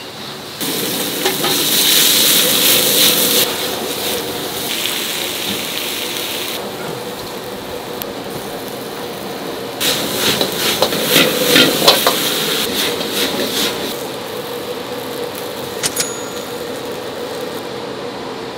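Food frying in a commercial kitchen: a loud burst of sizzling early on, then metal utensils clattering against the pan about ten seconds in, over a steady hum.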